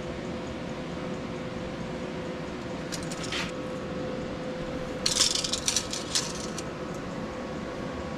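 Welded steel pieces clinking and scraping as they are handled and set against each other: a short scrape about three seconds in, then a louder run of several sharp metallic clicks a couple of seconds later, over a steady background hum.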